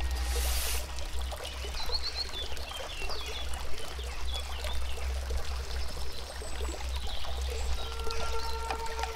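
Trickling, pouring water with a steady low hum beneath and a run of short high chirps about two seconds in; a few held musical tones come in near the end.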